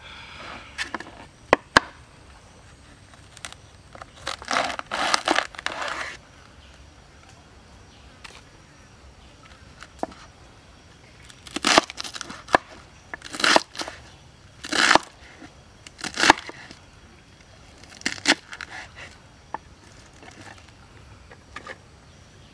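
Fresh cabbage crunching and tearing: leaves snapped off the head, then a large knife cutting through the leaves on a wooden cutting board. A scattering of short, crisp crunches in small groups with pauses between, the loudest run of cuts about halfway through.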